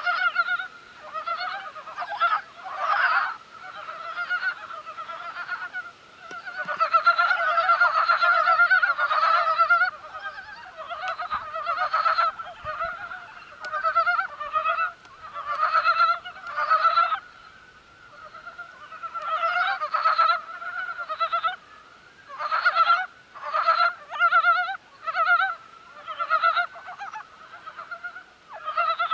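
A chorus of early-breeding frogs calling, freshly out of hibernation in near-freezing weather: many rapid, pulsed croaking calls overlapping in bouts, with short lulls every few seconds.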